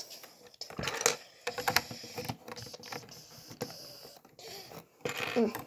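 Plastic Lego pieces clicking and clattering as they are handled and pressed together, a run of irregular sharp small clicks.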